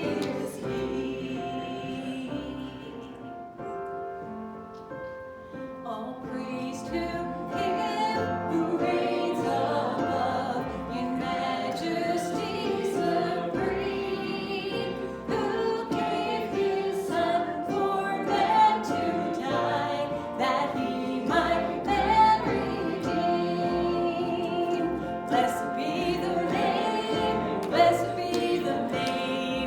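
Church worship singing: voices singing a song together with musical accompaniment. It drops quieter a few seconds in, then builds back up.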